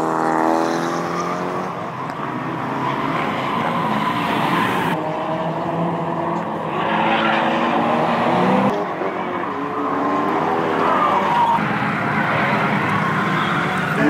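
Drift cars on a race track, engines revving up and down with tyre squeal and skidding, in several short takes so the sound changes abruptly every few seconds.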